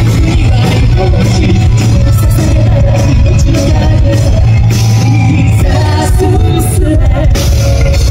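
Live Japanese-instrument rock band playing loud: female lead vocal over a heavy bass-driven band with shamisen. The sound is distorted and clipping from being recorded right in front of the PA speakers.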